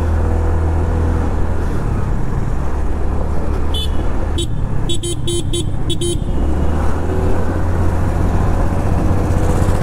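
A TVS Jupiter 125 scooter is being ridden and picking up speed, with wind rush on the microphone and engine and road noise as a steady low rumble. Between about four and six seconds in, a horn gives a quick series of short beeps.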